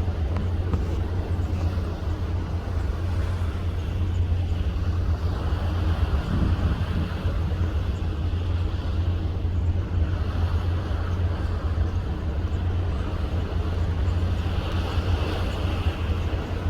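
Steady low drone of a ship under way at sea, with an even rushing noise over it.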